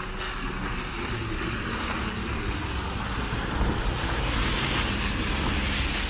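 A car passing on a snowy street, its tyre hiss swelling and loudest near the end, over a low rumble of traffic.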